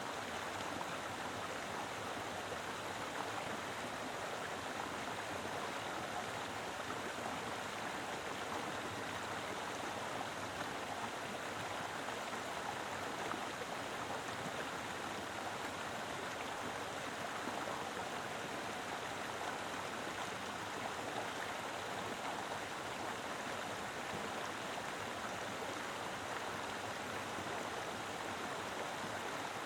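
Mountain river flowing, a steady rush of water with no breaks.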